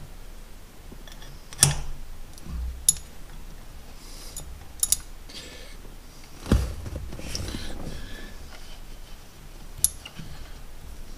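Steel hand wrenches clinking against the adjustment nuts of a short-throw T-5 shifter as they are held and tightened: a handful of sharp metal clicks, two close together near the middle, among quiet handling noise.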